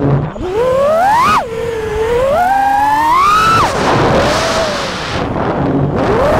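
FPV quadcopter's brushless motors and propellers whining, the pitch rising as the throttle is punched and dropping sharply when it is chopped, about a second and a half in and again near four seconds. A rush of wind follows the second drop.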